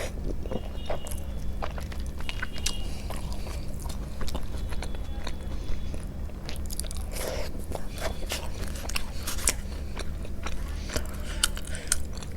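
Close-miked eating sounds: biting and chewing soft food, with many small wet mouth clicks.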